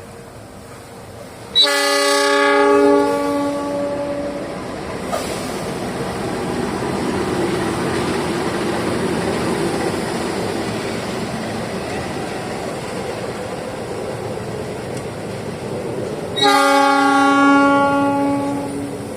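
Horn of a CC206 diesel-electric locomotive sounding two loud blasts of several notes at once, one about a second and a half in and one near the end, each about two seconds long. Between them the train's steady running rumble and wheel clatter.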